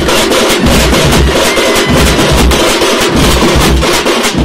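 Street drum band playing loudly: large bass drums on wheeled stands are struck with sticks, and a mass of smaller hand-held drums plays fast, dense strokes over them. The bass drum hits come in a steady, driving rhythm.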